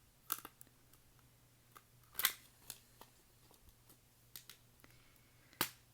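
Faint handling sounds of a plastic jewel-case album and its photocards: scattered short clicks and rustles, with two sharper clicks about two seconds in and near the end.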